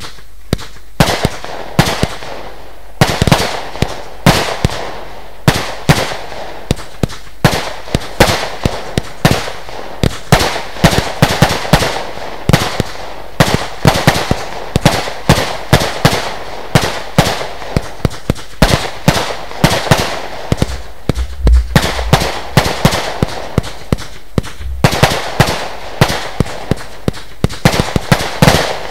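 Lesli Dezemberfest 512-shot compound firework cake firing: a rapid, unbroken string of sharp bangs, several a second, starting about a second in.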